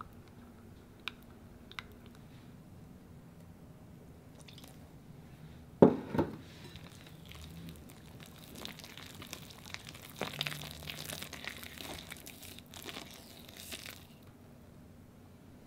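Two sharp knocks a little under halfway through, then a wire whisk stirring thick batter and melted butter in a glass bowl: uneven wet squishing and scraping for several seconds before it stops.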